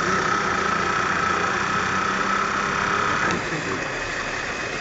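Francis turbine test rig running with water flowing through it: a steady machine hum with a high, even whine. The whine cuts off about three seconds in, while the load torque on the turbine is being turned up.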